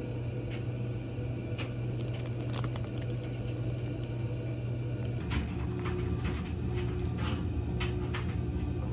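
Scattered light clicks and rattles of plastic and glass beads and a clear plastic phone case being handled, over a steady low hum.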